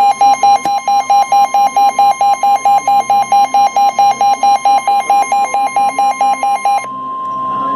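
NOAA Weather Radio's steady 1050 Hz warning alarm tone, which signals that a warning is about to be broadcast. Over it a weather-radio receiver's alarm beeps rapidly, about five beeps a second, and stops suddenly near the end while the steady tone goes on.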